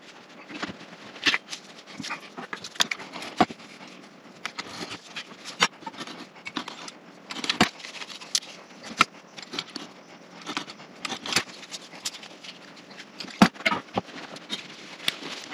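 Irregular clicks, taps and light scrapes of small wooden blocks and hand tools being picked up and set down on a wooden workbench.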